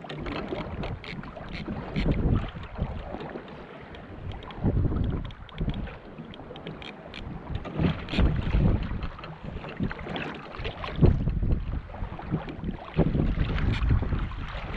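Wind buffeting the microphone in irregular gusts, with water lapping against a kayak and scattered light knocks.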